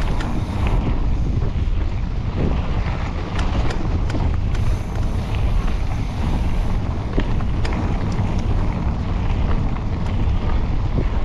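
Wind buffeting the microphone during a mountain bike ride, a steady low rumble, with scattered sharp clicks and rattles from the bike over the trail.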